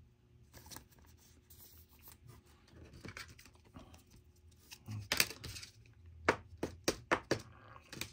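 Plastic card sleeve being handled and pulled apart: soft rustling, then a quick run of sharp plastic crinkles and clicks from about five seconds in.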